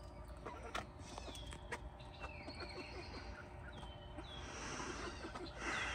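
Young chickens peeping, short high falling notes repeated about once a second, with a few light clicks and a brief rustle of feathers near the end.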